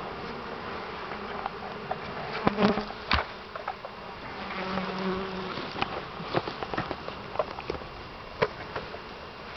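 A mass of honeybees from a three-pound package buzzing steadily as they are dumped into the hive, with a few sharp knocks from the wooden package box being handled and rapped, the loudest a couple of seconds in.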